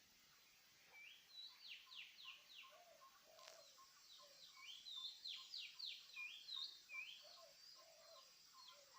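Faint birdsong: bursts of quick chirps and short whistled notes. Underneath runs a soft, steady pip about three times a second.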